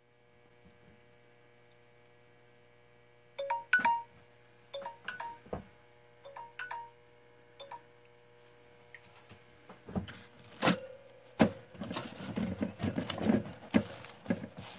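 A faint steady electrical hum, then a few seconds of short paired electronic chimes, followed by knocks and rustling as a frozen, stiff leather firefighter glove is gripped and pulled about on a freezer's wire shelf.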